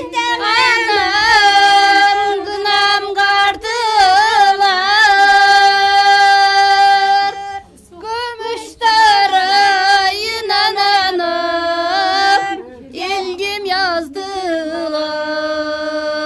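Women singing a traditional henna-night (kına) folk song in high voices while the bride is covered with a sheet. Long, held notes with wavering ornaments, broken by a short pause for breath about eight seconds in.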